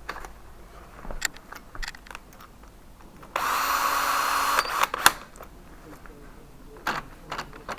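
A cordless power drill runs in one short burst of about a second, starting and stopping abruptly, amid scattered clicks and knocks of tools being handled.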